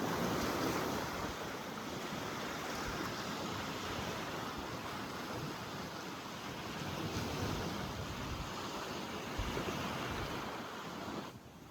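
Ocean surf washing steadily against the shore, with wind gusting across the microphone.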